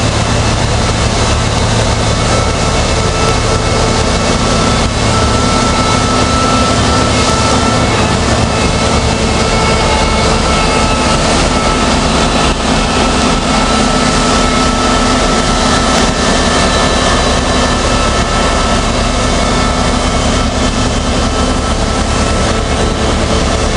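A running engine or motor: a loud, steady drone with a constant hum and a thin whine over a rushing noise, unchanging throughout.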